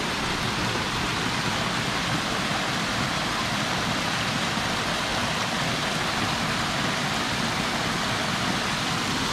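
Small tiered rock waterfall cascading into a pond: a steady rush of falling water.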